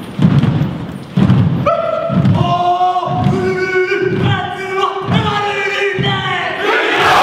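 Haka group beating time in unison, a thud about every 0.8 s. Long, held chanted voices come in about two seconds in, and a louder shout builds near the end.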